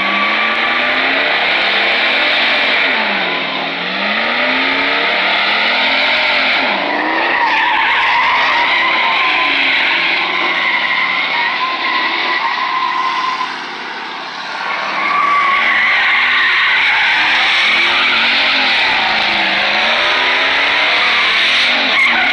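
Pickup truck doing donuts: its engine revs up and down while the rear tires squeal and skid on the asphalt. The sound dips briefly about thirteen seconds in, then picks back up.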